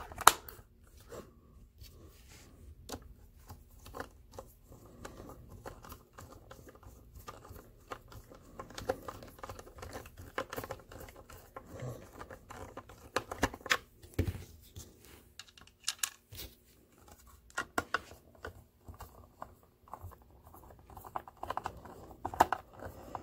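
Irregular small clicks, taps and scrapes of the plastic brush-roll nozzle of a Shark cordless hand vacuum being handled and screwed back together with a screwdriver, with a sharper click just after the start.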